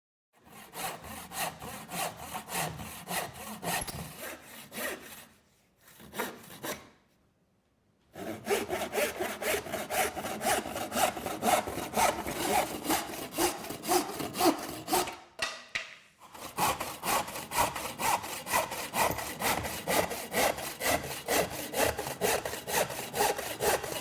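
Hand saw with hardpoint triple-ground teeth cutting by hand in rapid rhythmic back-and-forth strokes, as several separate cuts with short breaks between them.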